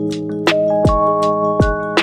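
Background music: held keyboard chords over a steady electronic kick-drum beat.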